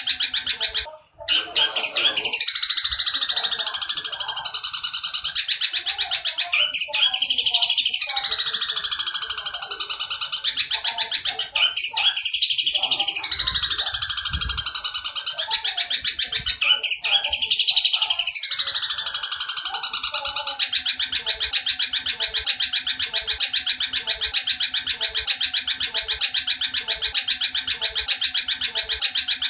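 Long-tailed shrike (candet) giving a fast, rapid-fire run of repeated chattering notes in imitation of oriental dollarbird (tengkek buto) calls. Four times the run falls in pitch over about three seconds, with brief breaks between, then it continues as unbroken rapid chatter for the last third.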